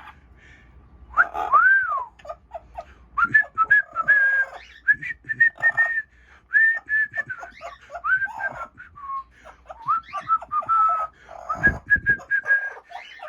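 Amazon parrot whistling a tune: a gliding note, then a long run of short whistled notes and chirps.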